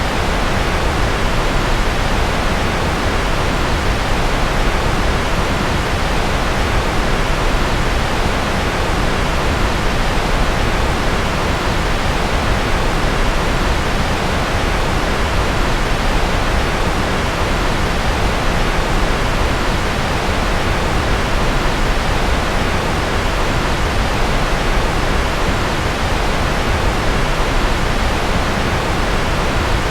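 Steady, unchanging rushing noise, heaviest in the low end and thinning toward the top, with no rises, breaks or separate events: a continuous noise track for sleep, billed as rocket or jet noise.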